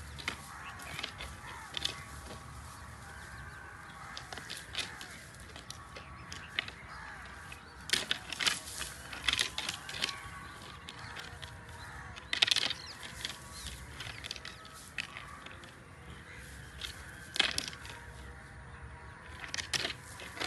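Spotted deer (chital) stags sparring with locked antlers: scattered sharp clacks and knocks of antler on antler, in a cluster around eight to nine seconds in, the loudest about twelve seconds in, and more near the end.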